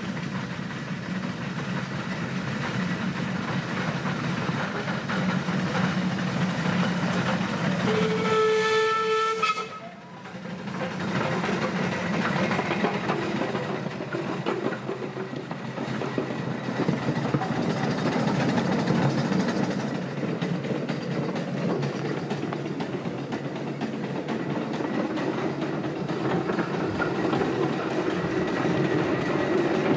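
A vintage road roller running steadily as it approaches and drives past. About eight seconds in, a steam whistle gives one clear blast of just under two seconds, which cuts off sharply.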